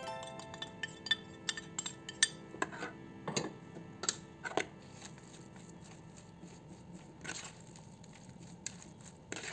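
Metal spoon clinking and scraping against a ceramic plate as seasonings are knocked off it, a quick string of sharp clinks with short ringing over the first few seconds. Then softer sounds of the spoon stirring through minced chicken and grated carrot in a plastic basin.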